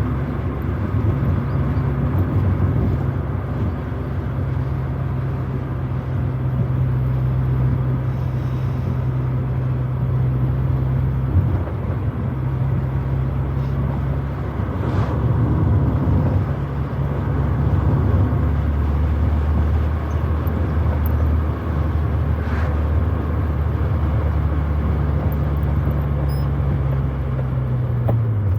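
Proton Wira 1.5's four-cylinder engine running while driving, heard from inside the cabin. Its note holds steady, breaks off briefly a little before halfway, and runs lower through much of the second half. It then climbs again and drops near the end as the speed and gears change.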